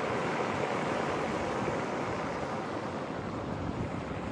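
Sport motor yacht running at speed on the water: a steady rush of engine and hull-and-wake water noise, slowly getting a little quieter.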